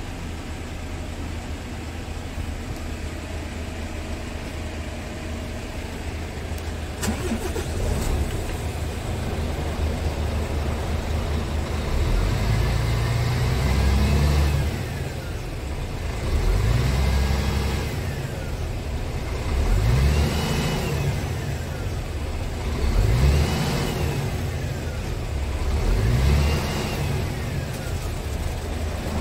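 Scania R450's 13-litre straight-six diesel idling steadily, heard from inside the cab, then revved up and let fall back about five times in neutral, every three seconds or so, from about twelve seconds in. A single click about seven seconds in.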